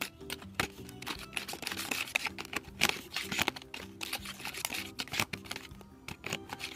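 Small plastic spoon stirring and scraping a candy-powder mixture in a compartment of a plastic Popin' Cookin' candy kit tray: quick, irregular clicks and scrapes of plastic on plastic.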